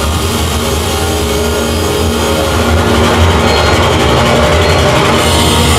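Loud, dense electronic drone and noise from a sound-art installation's loudspeaker, with a strong low hum under a rough, machine-like texture and many held tones. It grows a little louder about three seconds in.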